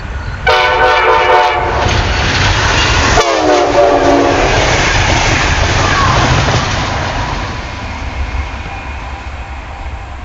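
Amtrak train's air horn, sounded from the leading cab car: a short chord blast, then a second blast about three seconds in that slides down in pitch as the train goes by. The rush of the passing train follows and fades away.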